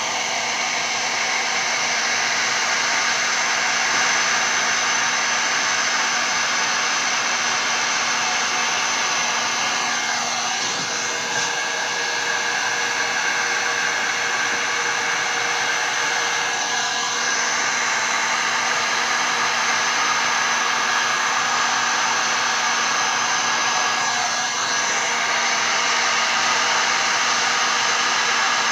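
Heat gun running steadily, its fan blowing hot air over the freshly poured paint and resin.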